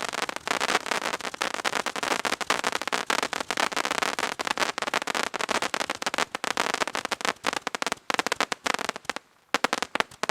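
Gatling Gun fireworks firing a dense, rapid stream of cracking bangs that thins out about eight seconds in, ending with a few scattered pops.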